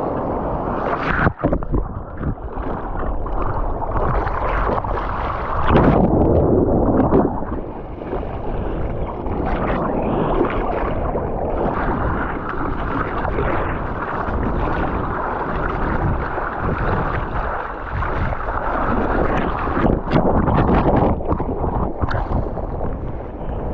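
Sea water rushing and sloshing around a surfer in the surf, with wind buffeting the microphone; the water swells louder about six seconds in and again near the end.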